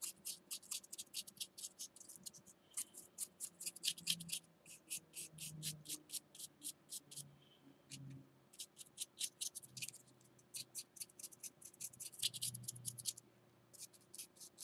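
Paintbrush bristles dabbing paint onto a small textured terrain column held in the hand: quick bursts of light, scratchy taps, several a second, with short pauses between bursts.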